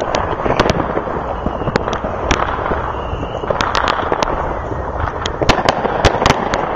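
Fireworks going off: a continuous rumble of bursts with many sharp cracks and pops at irregular intervals.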